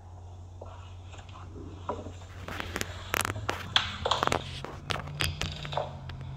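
A run of irregular sharp clicks and knocks, loudest in the middle of the stretch, over a steady low hum.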